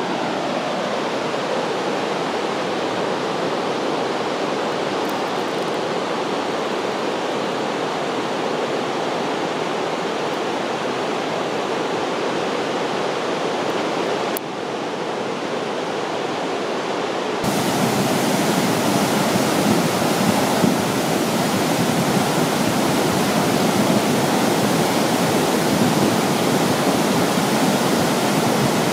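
A mountain river in flood after days of heavy rain, its muddy torrent rushing steadily. The rush grows louder and fuller about two-thirds of the way in.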